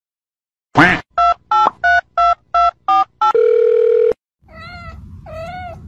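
A short rising sweep, then seven telephone keypad dialing beeps and a longer held tone, added as a sound effect. A white kitten follows, meowing a few times.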